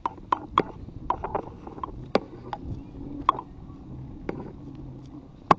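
Irregular sharp clicks and knocks over a low rumble, the loudest knock near the end: handling and rattle noise from a hand-held camera on a moving bicycle.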